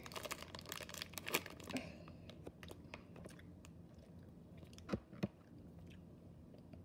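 Plastic candy packaging crinkling as a gummy is dug out from the bottom, dense for about two seconds and then quieter, with two sharp clicks about five seconds in.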